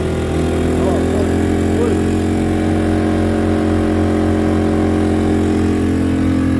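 I-Power SM2000i 2000-watt inverter generator engine running at a steady, even hum, set to low idle (eco mode).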